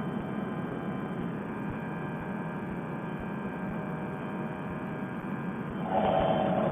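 Fresh Breeze Monster paramotor engine droning steadily in flight, pushing the trike along. About six seconds in it jumps louder and brighter.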